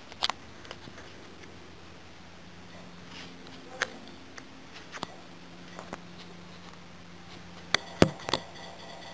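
Handling noise of a phone being moved and set down: a few scattered sharp clicks and knocks, the loudest cluster about eight seconds in, over a faint steady hum.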